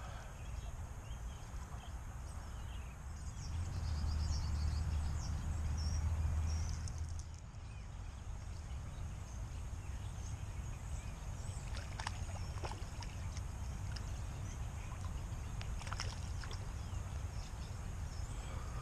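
Faint outdoor background at a lakeside, with a low rumble on the microphone about 3 to 7 seconds in and a few faint light clicks later on.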